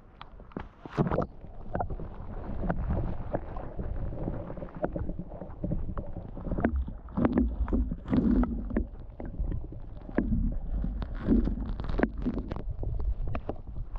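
Muffled underwater sound of an action camera held under lake water: a low rumble of moving water, dotted all through with short clicks and crackles.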